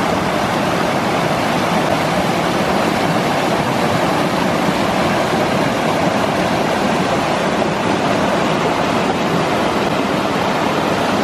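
Small waterfall with river water cascading over rock ledges: a steady, loud rush of white water.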